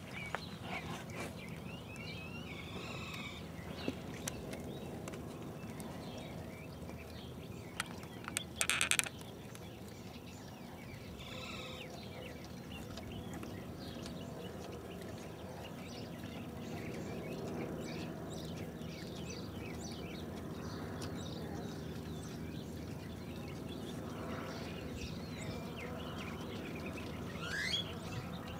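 Newborn puppies giving a few faint high squeaks while the mother dog licks them, over a low steady hum, with a short burst of clicks about nine seconds in.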